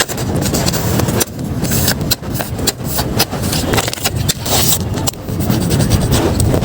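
Paper blind-bag packets crinkling and rustling as they are handled and opened close to the microphone, with irregular crackles over a low rumble.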